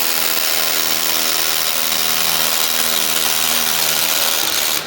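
Electric drill of a dual-purpose grout injection machine running steadily while drilling a hole, then cutting off sharply near the end.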